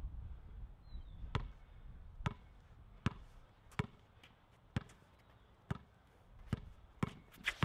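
Basketball being dribbled on an outdoor hard court: about nine sharp bounces, roughly one a second, coming quicker near the end.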